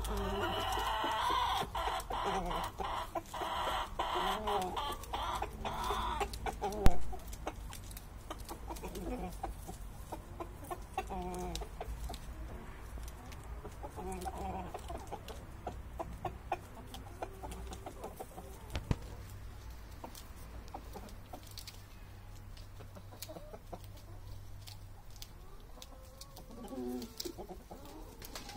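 A flock of domestic chickens clucking while feeding, a busy overlapping chorus for the first six seconds, then softer, scattered clucks. A single sharp knock comes about seven seconds in.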